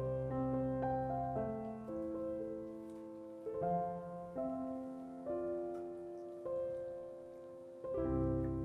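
Slow, gentle background piano music, held notes fading one into the next, with the low notes dropping out for a while and coming back about eight seconds in.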